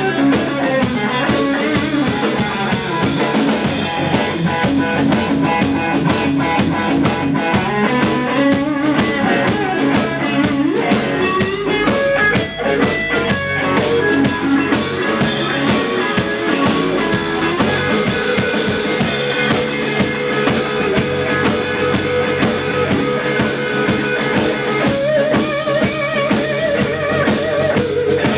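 A live blues-rock trio playing an instrumental stretch without vocals: the electric guitar takes the lead over electric bass and a drum kit.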